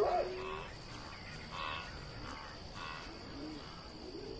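Spotted hyena whooping: a long rising call that ends about half a second in, followed by fainter repeated calls roughly every second and a half, over a steady high hum of night insects.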